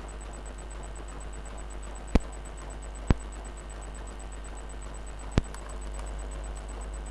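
Three sharp clicks, about two, three and five seconds in, from small parts or hand tools being handled while a new TL431 IC is fitted, over a steady low mains hum and hiss.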